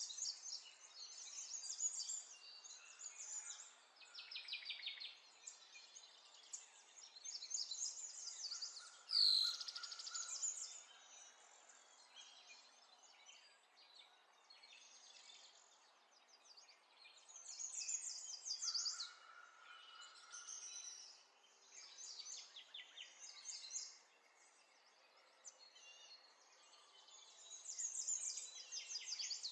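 Faint birdsong: high chirps and quick trills come in clusters, with pauses of near silence between them.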